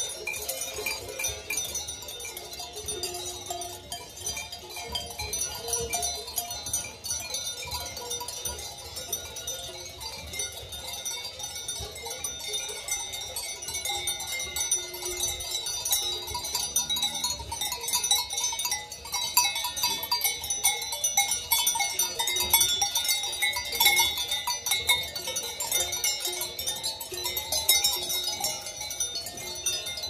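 Many cowbells clanking irregularly and continuously as a herd of dairy cows grazes and moves its heads.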